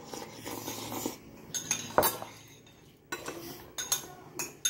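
A metal spoon clinking against a small porcelain bowl during eating, and the bowl being set down on a wooden table: a few sharp clinks and knocks, the loudest about two seconds in.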